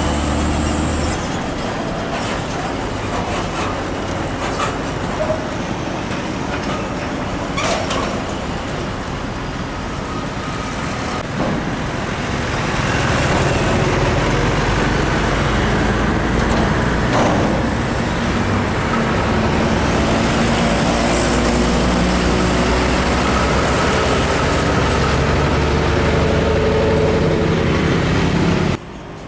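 Diesel engines of heavy container tractor-trailers, a UD and a Hino 500, running as they drive past one after another in road traffic. The steady engine drone grows louder about halfway through as a truck approaches, with a few short sharp noises along the way.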